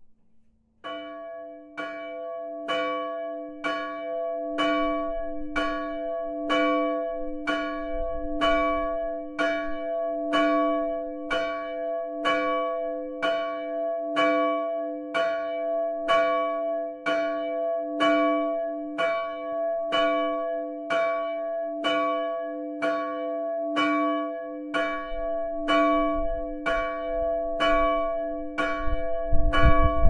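Small bronze church bell tuned to about C-sharp (cis²), 188 kg and 680 mm across, cast by the Fischer brothers of Trnava in 1939, swinging alone and ringing. It starts about a second in and strikes steadily about once a second, each stroke ringing on into the next.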